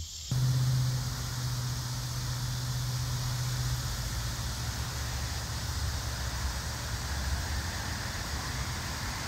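Steady traffic noise from a nearby busy road: an even hiss with a low hum that eases off about four seconds in.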